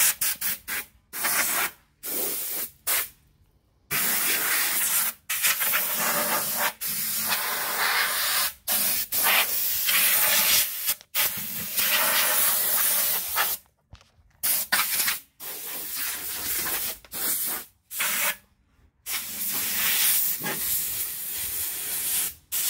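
Compressed-air blow gun hissing in repeated bursts, each switched on and off abruptly, blowing dust and loose rust off the wheel balancer's base.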